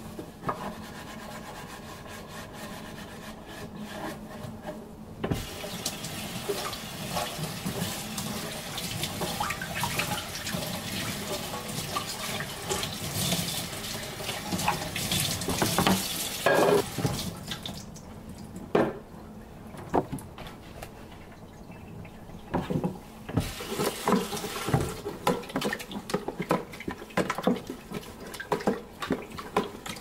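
Tap water running into a sink, starting about five seconds in and stopping a little past the middle. Short knocks and clatter of things being handled follow near the end.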